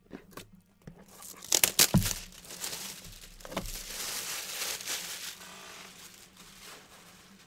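Plastic shrink-wrap being torn and crumpled off a sealed trading-card box: a few sharp snaps about a second and a half in, then several seconds of crinkling that fades out.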